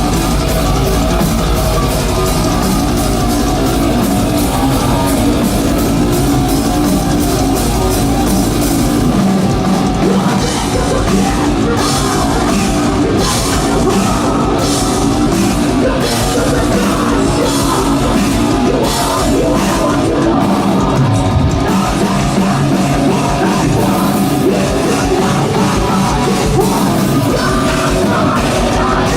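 Heavy metal band playing live: distorted guitars, bass and a pounding drum kit, with no vocals.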